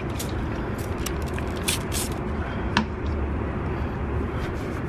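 Steady low background rumble, with a few short rustles and clicks from a microfiber towel being handled around the exhaust tip.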